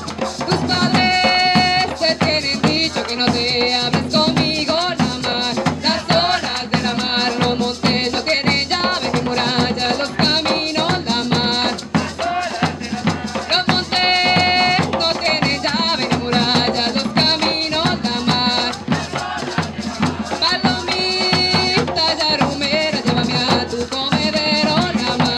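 Live cumbia music played without singing: maracas shaking steadily over drums, with a pitched melody instrument coming in now and then.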